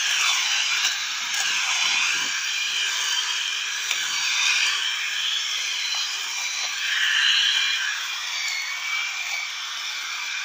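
Homemade string trimmer built from a corded electric drill, running at high speed and cutting grass: a steady high motor whine with a hiss, its pitch wavering up and down as the head meets the grass.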